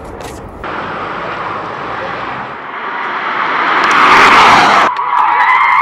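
Piëch GT electric sports car passing at speed, with no engine note: tyre and wind noise that swells to a peak about four seconds in, then cuts off abruptly. A wavering high whine follows.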